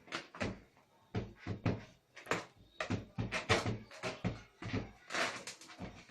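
A child banging household things, perhaps a cupboard door, in a rapid, irregular run of knocks and bangs, about three a second.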